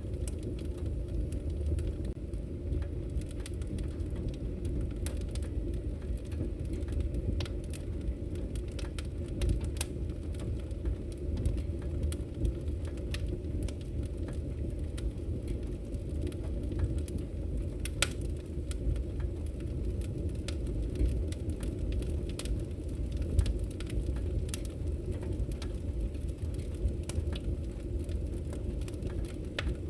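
Campfire burning: a steady low rumble of flames with scattered sharp crackles and pops, one louder pop about 18 seconds in.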